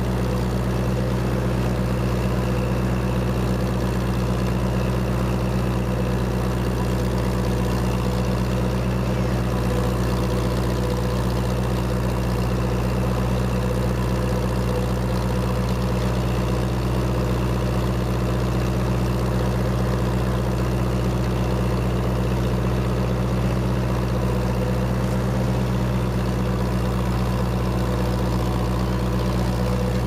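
1958 Massey Ferguson 35's four-cylinder engine running steadily under load as the tractor pulls a cultivator across the field.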